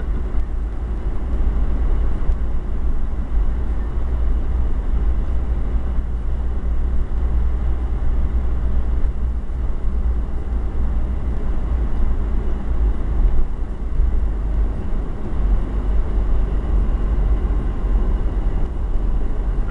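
Steady low rumble of a car driving along, heard from inside the cabin: engine and road noise with no distinct events.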